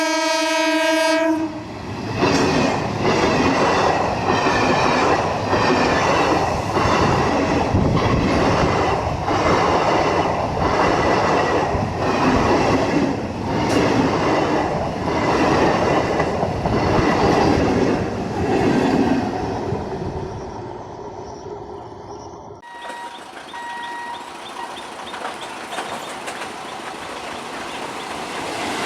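A loud horn blast from an Alco WDM3D diesel locomotive ends about a second in. Then the train's coaches run past at speed with a steady, rhythmic clickety-clack of wheels over rail joints, which fades after about twenty seconds.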